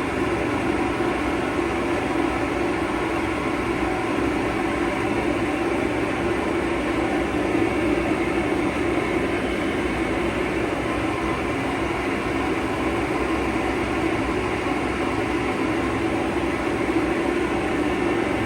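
Hair dryer running steadily on a dog's coat, a constant blowing noise with a low hum.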